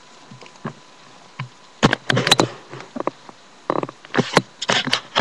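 Scratchy rustling and light knocks of pencil and paper being worked and handled, in two clusters about two and four seconds in.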